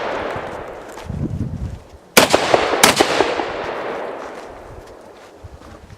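Shotgun fired twice in quick succession about two seconds in, each shot ringing off in a long echo; the echo of an earlier shot is fading at the start, and a short low rumble comes about a second in.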